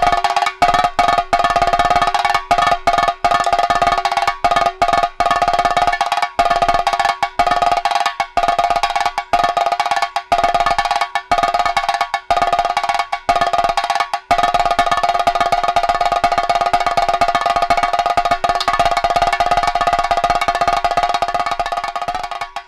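Chenda, the Kerala cylindrical temple drum, played with a curved stick in fast rolling uruttu strokes: a dense, sharply ringing roll of strokes. It breaks off briefly a few times in the first half, then runs on unbroken from about the middle.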